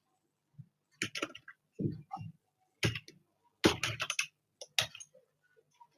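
Computer keyboard typing: quick keystrokes in short bursts with brief pauses between them.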